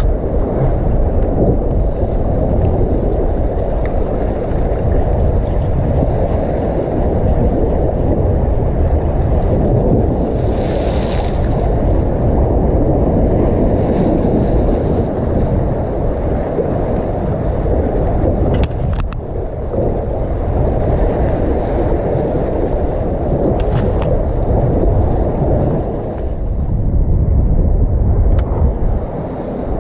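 Strong wind buffeting the microphone as a steady low rumble, over sea waves washing against the rocks below, with a brief hiss about eleven seconds in.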